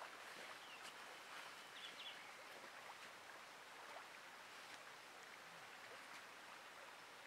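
Near silence: faint steady outdoor hiss by a river, with a few small ticks and a couple of short faint chirps about two seconds in.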